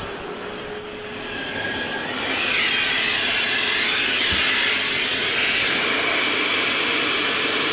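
HiKOKI RP250YD dust extractor running, drawing air through its hose and a Miyanaga dust pad with a steady rushing hiss. The hiss swells over the first couple of seconds and then holds even.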